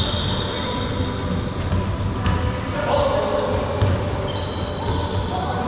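Indoor dodgeball game: balls thudding on the floor and against players, short high squeaks of sneakers on the court, and players' voices, in a large echoing hall.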